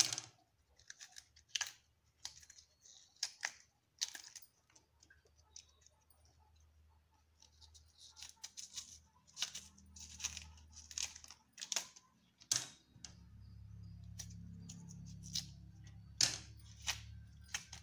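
Cassava root being peeled with a knife and by hand: the thick skin is scored and stripped off in a string of short, irregular scraping and tearing sounds. A low steady hum comes in about two-thirds of the way through.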